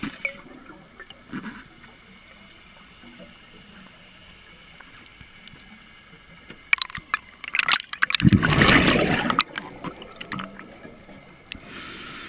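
Underwater gurgling of a scuba diver's exhaled bubbles. It is faint at first, with a few clicks, then a loud burst of bubbling about eight seconds in that lasts a couple of seconds.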